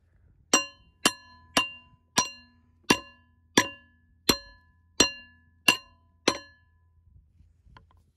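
Ten hammer blows on a 1976 Mercedes 240D front brake rotor, about half a second to three quarters of a second apart, each leaving a short bell-like metallic ring. The blows are knocking the rotor free of its hub once its bolts are out.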